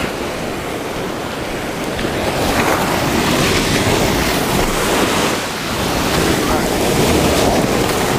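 Ocean surf breaking and washing up the beach, with wind buffeting the microphone; the wash swells louder about two and a half seconds in.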